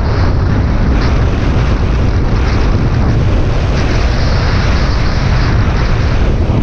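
Heavy wind buffeting on the microphone over a Honda Bros 160's single-cylinder engine running on a road test ride, a steady loud rush with a deep rumble underneath.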